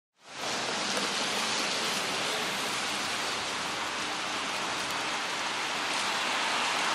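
Steady hiss of rain on a wet street, fading in just after the start.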